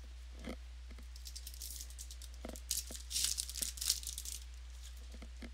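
Wrapper of a trading-card pack crinkling and tearing as it is handled and opened, with a few sharp clicks. The crackling is loudest about three to four seconds in.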